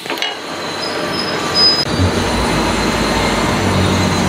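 Gas stove burner flame running just after being lit with a spark lighter, a steady rushing hiss under an empty kadai that grows a little louder with a low hum about two seconds in.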